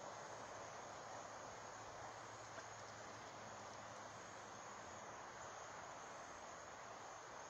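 Faint, steady outdoor ambience: a continuous high insect trill over an even hiss, with no distinct events.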